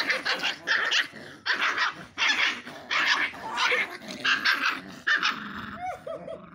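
Two puppies fighting, growling and snarling in harsh bursts about twice a second, easing off near the end with a couple of short falling whines.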